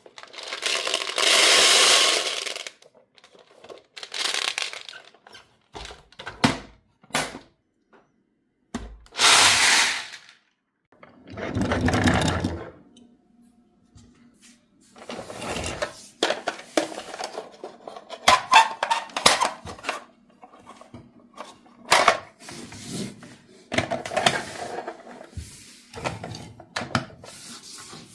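Marbles rolling down a wooden marble run, heard as several rushing rolls of a second or two each, then a long run of quick clicks and clacks as marbles knock against the track and each other.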